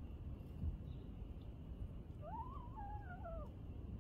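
A cat gives one drawn-out, wavering meow about two seconds in, rising and then falling in pitch over a little more than a second. A low background rumble runs underneath, with a dull bump just under a second in.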